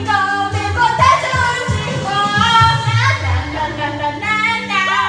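A woman singing a pop song over a backing track with a steady beat.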